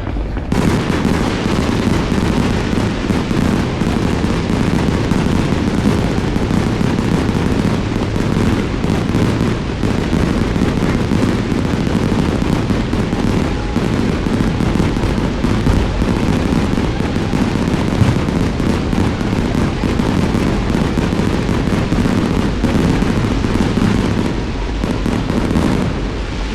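Aerial fireworks going off in a rapid, continuous barrage of overlapping booms and crackles, with no pause between bursts.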